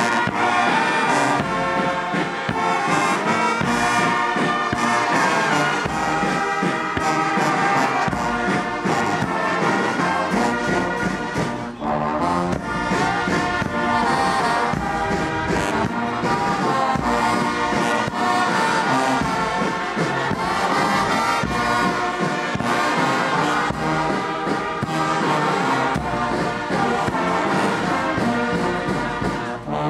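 Brass band with trumpets and trombones playing a march with a steady beat.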